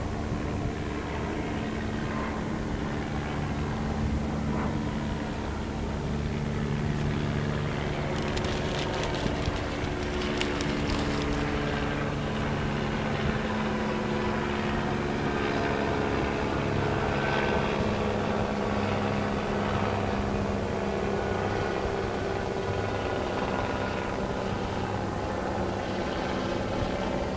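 Steady engine drone with a low hum. A short stretch of crackling about eight to eleven seconds in.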